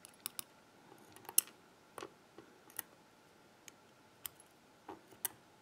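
Light metallic clicks and taps of steel tweezers and small lock pins against a brass euro-cylinder plug as pins are set into its holes. There are about nine irregular, sparse clicks.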